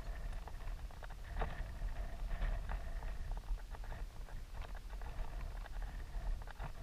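Wind buffeting the microphone as a low rumble, with scattered small clicks and rustles of handling noise throughout.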